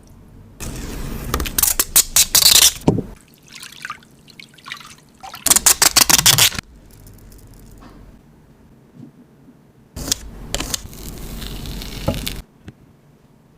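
Liquid sloshing and trickling inside an acrylic quicksand shaker as it is handled, with light clicks of the plastic case. The sound comes in three spells of a few seconds each.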